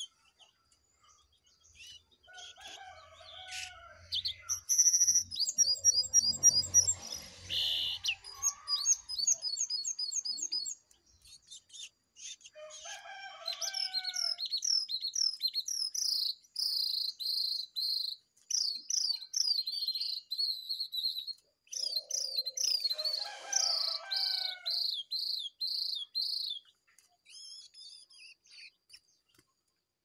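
Jongkangan birds calling, a wild one beside a caged one: several fast runs of high, repeated down-slurred chirps, with lower whistled notes between them. A short rustling noise with a low hum comes about six to eight seconds in.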